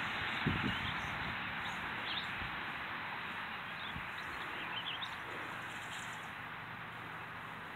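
Small birds chirping a few times, around two seconds and again about five seconds in, over a steady outdoor hiss; a couple of low thumps about half a second in.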